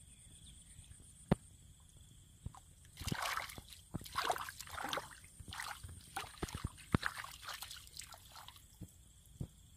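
Hands sloshing and groping in shallow muddy water, splashing and squelching through the mud. A run of splashes starts about three seconds in and dies down near the end.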